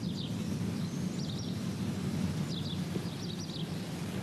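Outdoor ambience: low, steady background noise with a few short, high bird chirps scattered through it.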